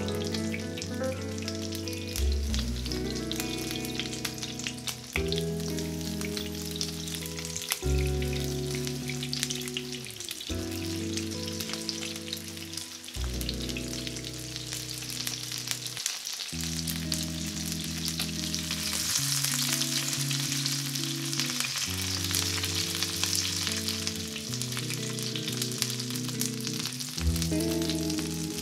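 Egg-battered pork patties, fish fillets and zucchini slices sizzling and crackling in hot oil in a frying pan, the spitting getting louder about two-thirds of the way through. Background music with sustained low notes plays underneath.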